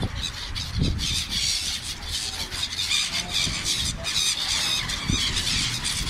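A large flock of gulls calling, with many short, high calls overlapping without a break.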